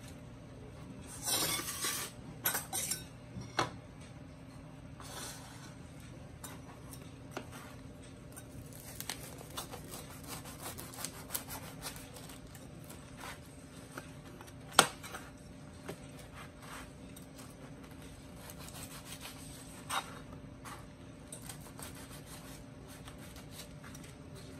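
A knife sawing through crisp toast on a plate to cut it into crouton cubes: crunchy scraping strokes and scattered clicks of the blade on the plate, with a louder scraping rustle just after the start and one sharp click about halfway through.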